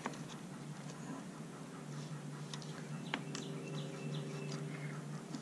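Faint small metal ticks and squeaks from a feeler gauge blade being drawn between a rocker arm and valve stem while a small wrench works the rocker adjuster locknut. This is a valve-clearance check on a four-stroke trimmer engine, with the gap being set to five thousandths.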